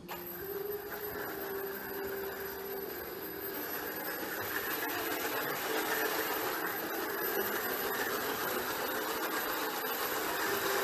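3D-printed RC car's small electric drive motor whirring through its 3D-printed plastic gears as it drives, a steady mechanical drone with a whine that shifts in pitch and grows slightly louder.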